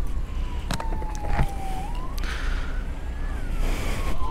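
Emergency vehicle siren wailing, its pitch sliding slowly down, rising for a couple of seconds, then sliding down again. Under it runs a steady low rumble, with a few sharp clicks in the first couple of seconds.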